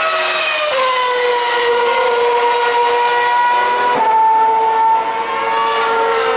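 Formula One car's 2.4-litre V8 engine running at high revs, a sustained high-pitched engine note whose pitch shifts abruptly about a second in and again about four seconds in.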